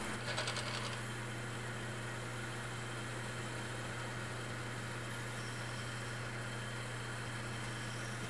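Metal lathe running with a steady motor hum as a drill and then a reamer open up the centre bore of a spinning hub, with light cutting noise in about the first second.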